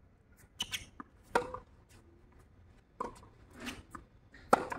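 Tennis rally: a ball being struck by rackets and bouncing on a hard court, heard as a series of sharp pops. The loudest hits come about a second and a half in and near the end.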